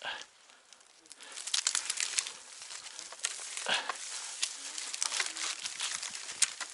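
Dry leaves, twigs and brush crackling and rustling irregularly, starting about a second in, with a short louder sound in the middle.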